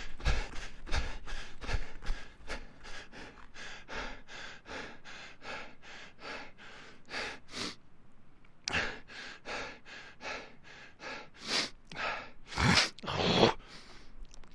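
A person panting hard from running: quick, even breaths, about three a second, with low thumps of footfalls in the first couple of seconds. After a short break near the middle the panting starts again and ends in a few deeper, louder gasps.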